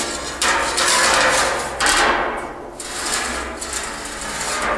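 Large metal framing square scraping across the rusty steel top of a drum as it is turned to a new position, in a few rasping strokes that start suddenly and fade.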